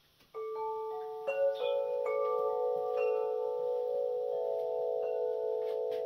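Chimes struck one note after another, starting about a third of a second in. Each note rings on, so several pitches overlap into a sustained, shimmering chord.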